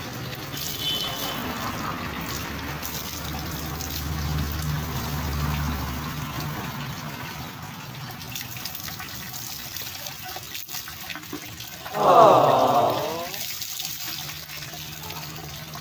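Water poured and splashing from a plastic dipper during an outdoor bucket bath, with trickling and dripping. About twelve seconds in, a short loud call.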